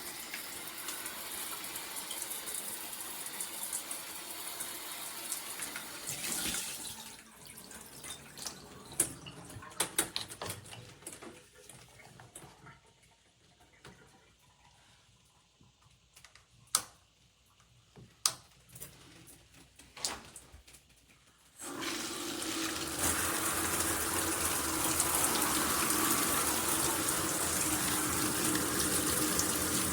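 Water spraying from a shower head. It dies away about six seconds in, leaving a quieter stretch with a few sharp clicks and knocks. About 22 seconds in the full spray comes on again suddenly, louder than before, with a steady low hum under it.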